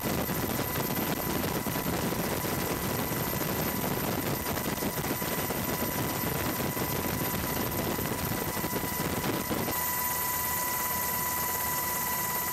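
Steady engine and airflow noise of the aircraft filming from above, with a thin steady high whine over it. Near the end the low rumble drops away and the whine and hiss stand out more.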